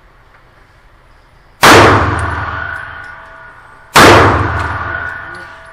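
Two pistol shots from a 9mm Glock 43, about two and a half seconds apart, each a sharp crack followed by a long echoing decay.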